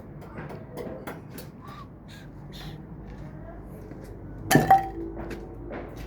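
Scattered light knocks and taps, then about four and a half seconds in a loud double clang with a brief metallic ring, typical of tools and formwork being handled on a building job.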